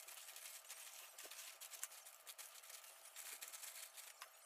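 Faint, rapid clicking and clinking of small metal coins being picked up and stacked by hand on a table.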